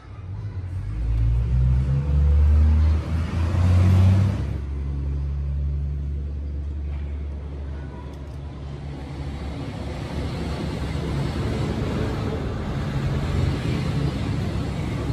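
A low rumble, loudest in the first four seconds or so, then steadier with a hiss over it.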